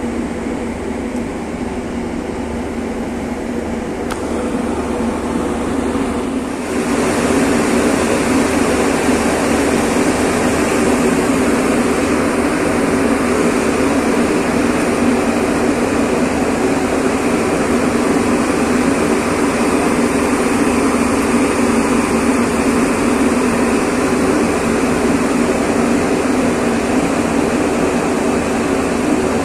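Car ferry's engines and machinery droning steadily with a low hum, getting louder about seven seconds in.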